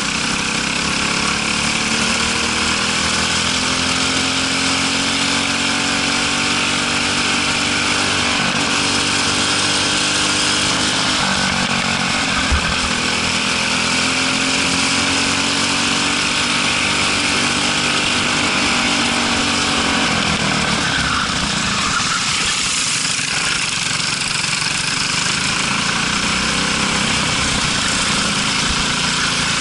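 Briggs & Stratton LO206 single-cylinder four-stroke kart engine under racing load, its pitch climbing steadily along the straights and dropping sharply as the driver lifts for corners, about 11 and 20 seconds in. Constant wind rush over the onboard microphone, with a short thump about twelve seconds in.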